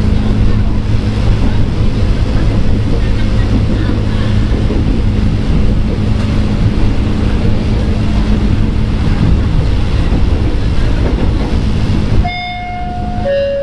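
Inside a former Tokyu 8000 series electric commuter train running at speed: a steady rail rumble under a constant traction-motor hum. Near the end the running noise drops suddenly, and a couple of short, clear pitched tones sound.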